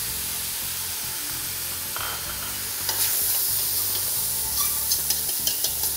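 Lean beef mince sizzling as it fries in a hot stainless steel pan, stirred and scraped with a metal spoon, in the first minutes of browning. The sizzle grows a little louder about three seconds in.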